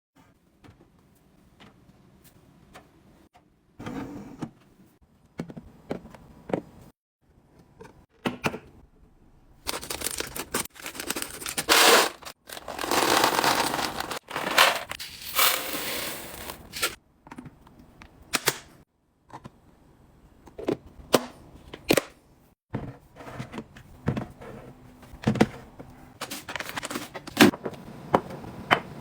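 Skincare products and their packaging being unboxed and handled: scattered taps, clicks and knocks, with a longer stretch of loud rustling or crinkling in the middle.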